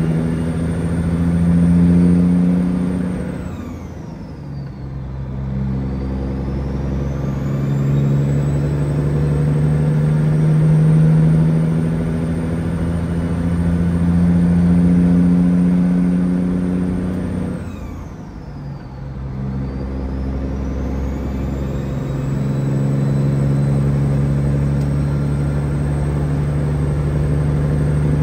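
Peterbilt 379's diesel engine heard from the cab, pulling steadily, with its note climbing slowly and dropping twice as the throttle lets off for an upshift; each time a high whine falls away and rises again as the engine pulls back in. Near the end it settles into a steady highway cruise.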